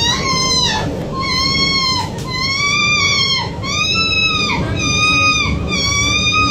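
A woman wailing and crying in a string of long, high-pitched cries, about one a second, each rising and then falling in pitch.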